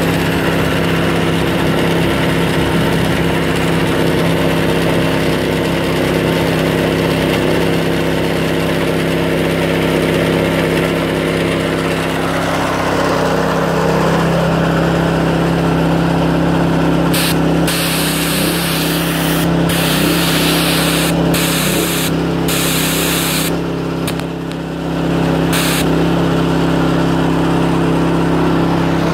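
Gas engine of a Titan PowrTwin 6900XLT airless paint sprayer running steadily. About two-thirds of the way in come five or six bursts of loud hissing that start and stop sharply, as the spray gun's trigger is pulled and released.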